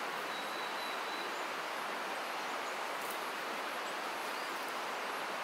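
Steady outdoor forest ambience: an even hiss, with a faint high thin note about half a second in.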